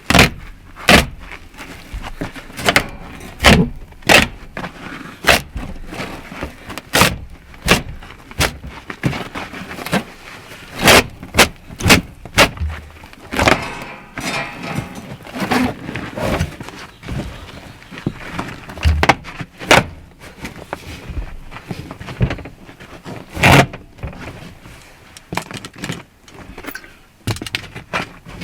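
Irregular knocks, clacks and scraping from hand work on a camper van floor: a trim strip being pried loose and old carpet pulled up.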